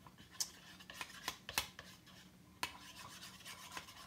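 A spoon stirring slime mixture in a bowl: irregular clicks and taps against the bowl, with stretches of scraping in the second half.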